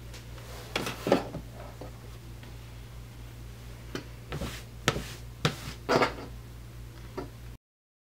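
An acrylic quilting ruler and cotton fabric being shifted and set down on a cutting mat: several short scrapes and taps over a steady low hum. The sound cuts off abruptly near the end.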